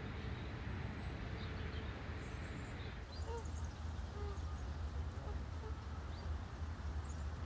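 Steady outdoor background with a low rumble, and scattered faint short bird calls.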